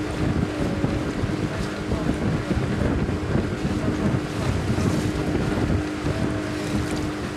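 Wind buffeting the microphone on a motorised river boat under way, with water rushing past and a steady motor hum underneath.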